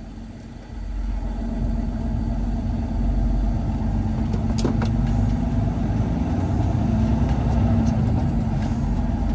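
Semi-truck diesel engine pulling a loaded trailer, heard from inside the cab; it builds over the first few seconds as the truck gets moving, then runs steadily.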